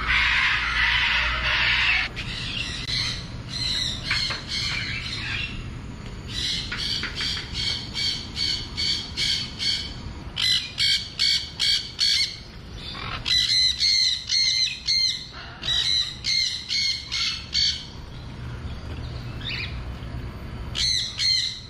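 Birds squawking: a loud harsh screech at the start, then runs of rapid repeated squawks, several a second, each run lasting a second or two.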